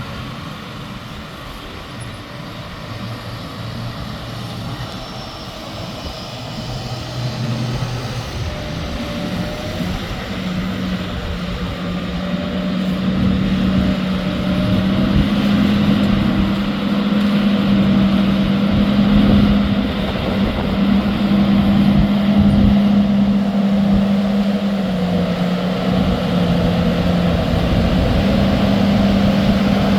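Tractor engine running at a steady pitch, getting louder over the first dozen seconds and then holding level.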